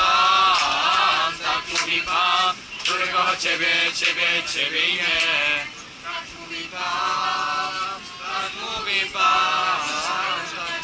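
A male voice singing a song, with long held notes that waver in pitch.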